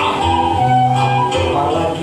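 Music: a guitar accompaniment with a singing voice holding and bending a melody line.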